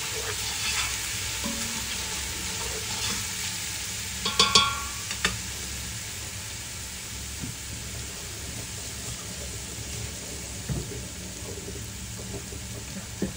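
Ground garlic, ginger and green chillies sizzling in olive oil in a stainless steel pot, a steady hiss. A spatula scrapes and clinks against the pot a few times about four to five seconds in, and the sizzle eases a little after that.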